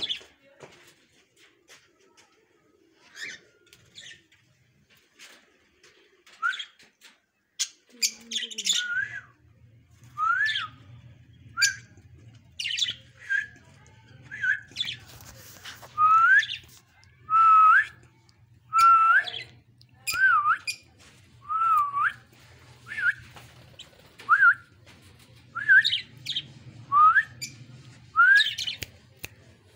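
Budgerigars chirping and calling: scattered short chirps at first, then from about nine seconds in a run of short rising-and-falling chirps about once a second. A low steady hum starts at the same moment and runs underneath.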